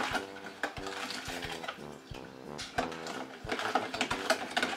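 A spoon stirring sorrel drink in a plastic pitcher, clicking against its sides at an uneven pace, over soft music.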